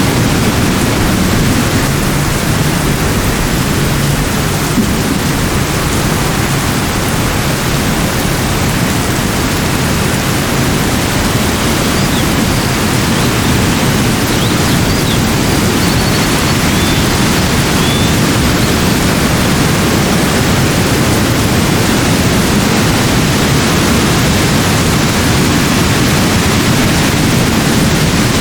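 Steady rushing water, a loud even noise heaviest in the low range, with a few faint high chirps about halfway through.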